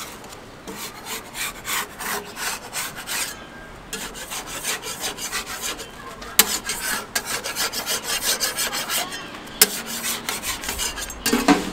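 Metal spatula scraping across a round griddle to loosen a thin Chinese crepe (jianbing) from the hot surface, in quick repeated rasping strokes, a few a second. Two sharp metallic clicks, about six and a half and nine and a half seconds in, stand out above the scraping.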